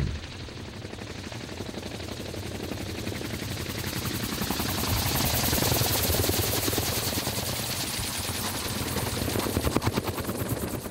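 GBA SparrowHawk gyroplane's unpowered two-blade rotor autorotating, a rapid steady chop of the blades with the propeller stopped in a no-power landing. It grows louder as the gyroplane comes close, peaking about halfway through, and eases a little after, with a few sharper knocks near the end.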